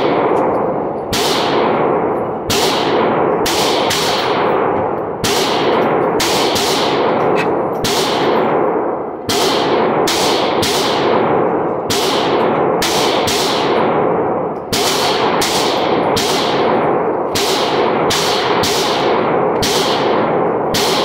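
Pistol shots in an indoor shooting range, an irregular run of about one to two shots a second, each ringing on in the range's echo.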